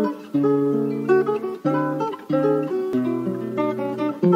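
Intro music played on plucked guitar: a melody of separate notes and chords, each ringing out before the next.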